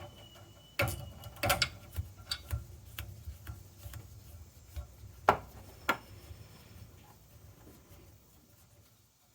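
Ratcheting gear wrench clicking irregularly as nuts on the hydrant head are worked, with light metal taps and clinks. The clicks thin out over the last few seconds.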